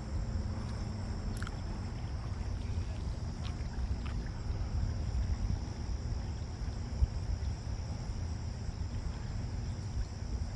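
Steady low wind rumble on the microphone over a small electric RC model boat running out on the water, with a single faint click about seven seconds in.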